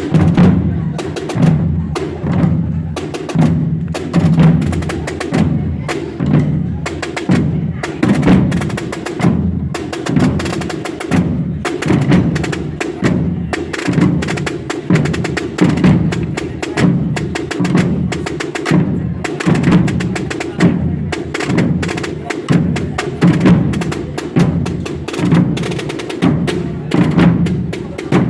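A Holy Week procession drum band, many drums struck together, playing a steady marching cadence. Crisp rattling strokes and rolls run over a deep drum tone, in a pattern accented about every two seconds.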